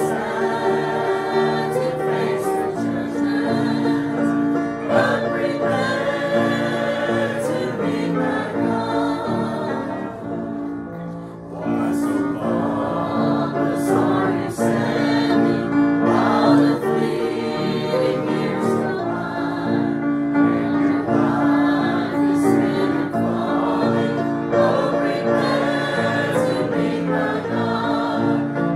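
Church congregation singing a hymn of invitation together, the voices holding long notes, with a brief lull about ten seconds in.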